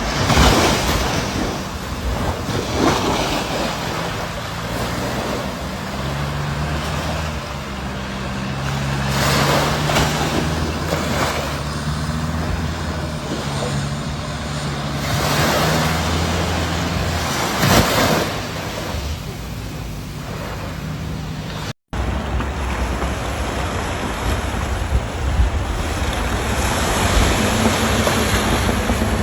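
Ocean waves surging and breaking, with several louder surges, over wind buffeting the microphone and a low steady hum. The sound drops out for an instant about two-thirds of the way through.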